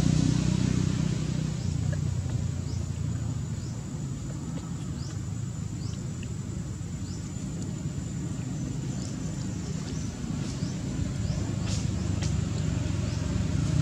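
Steady low rumble of a motor vehicle's engine running nearby, easing off and then growing again near the end. Short high chirps are scattered through it.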